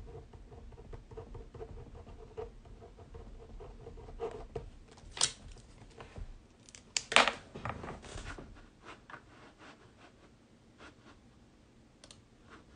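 Off-camera handling noises on a tabletop: light scraping and rustling with scattered small clicks, and two louder sharp scratchy sounds about five and seven seconds in.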